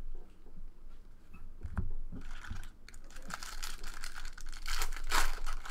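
Foil wrapper of a Bowman baseball card pack crinkling and tearing open, loudest near the end, after a soft thump about two seconds in.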